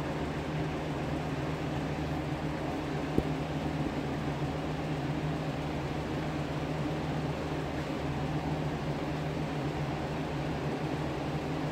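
Electric fan running steadily: a constant whir with a low hum. One brief click about three seconds in.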